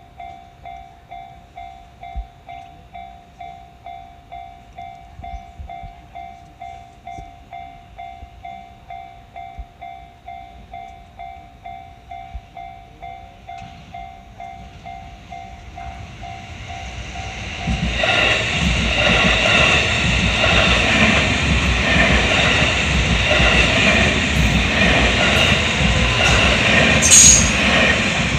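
Japanese railroad crossing warning bell ringing its electronic 'kan-kan' tone in a steady beat about twice a second. About two-thirds of the way through, a train passes over the crossing loudly, with a brief high wheel squeal near the end.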